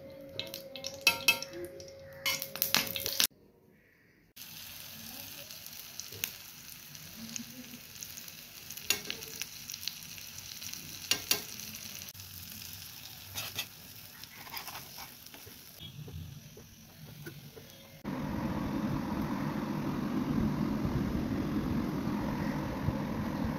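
Ridge gourd peel kababs shallow-frying in oil in a flat pan: a steady sizzling hiss with scattered crackles and pops. Near the end a louder low rumble takes over.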